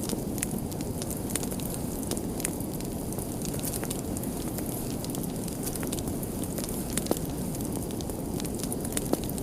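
Wood fire burning with a steady low rumble and scattered crackles, and a sharper pop about seven seconds in and another near the end.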